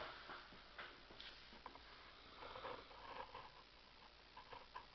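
Near silence: small-room tone with a few faint clicks and rustles.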